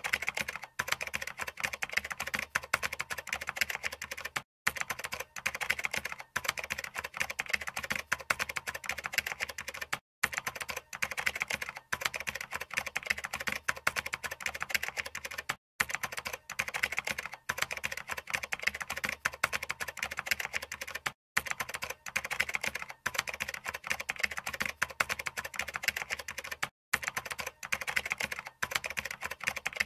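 Rapid keyboard typing clatter, a looped sound effect that breaks off for an instant about every five and a half seconds.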